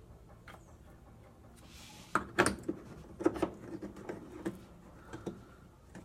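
Irregular knocks and clicks of parts being handled, a cluster about two seconds in and a few scattered ones after, as the drive pulley is fitted back onto the transmission shaft of an Electrolux top-load washer.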